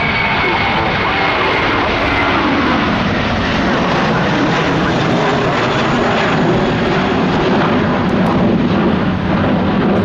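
Jet airliner's engines at high thrust as it departs: a loud, steady jet noise with a deep rumble underneath, holding level throughout.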